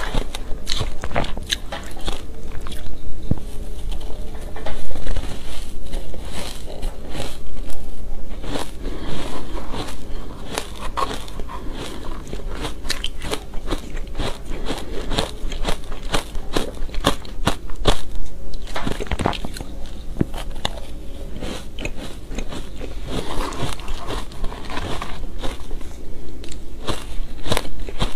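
Shaved ice dusted with matcha powder being bitten and chewed close to the microphone: a dense run of crackling, crunching bites.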